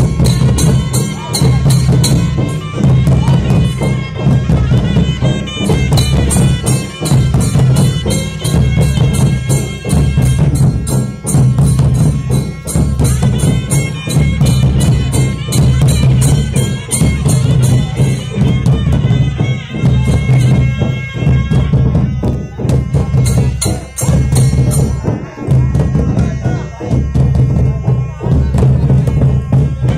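Loud traditional folk music played for a palanquin procession: drums beating a fast, steady rhythm with a melody instrument playing above them and a constant low hum underneath.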